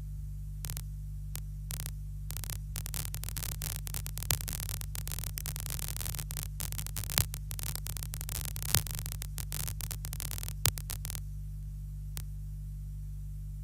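Steady low electrical hum on the audio track. For about ten seconds, starting just under a second in, it is overlaid by a dense run of sharp crackling clicks, with a few louder pops.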